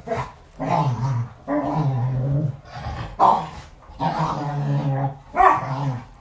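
Pet dogs barking over and over, about six long, drawn-out barks in a row.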